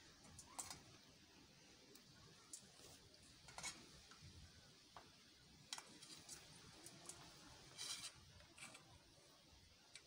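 Faint splashing and wing-fluttering of a parakeet bathing in a steel bowl of water: scattered short splashes and clicks, with the longest burst about eight seconds in.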